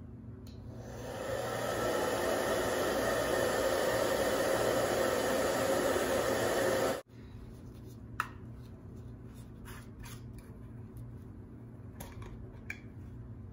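Rusk W8less hair dryer blowing onto a leather handbag: it starts about half a second in, runs steadily for about six seconds and cuts off suddenly. A few light clicks and knocks follow as things are handled and set down.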